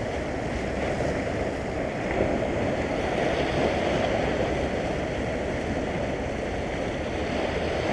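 Sea swell washing and foaming over shoreline rocks: a steady rush of surf.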